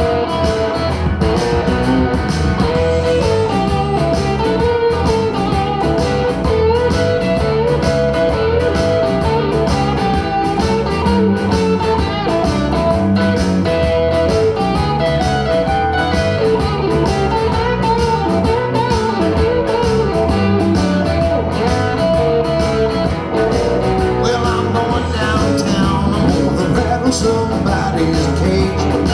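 Rock and roll band music in an instrumental break: an electric guitar plays a bending lead line over a steady drum beat and bass.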